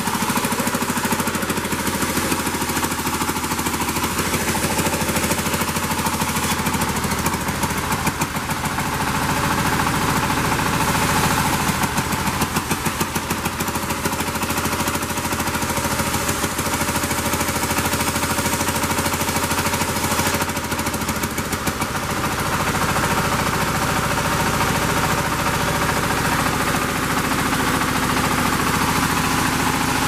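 Band sawmill machinery running steadily: a continuous engine-like drone with a fast, even pulse.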